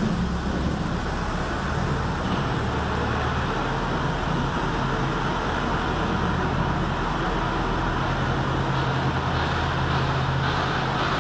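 Wide belt sanding machine line for solid surface sheets running: a steady mechanical drone, a low hum over an even rushing noise that holds level throughout.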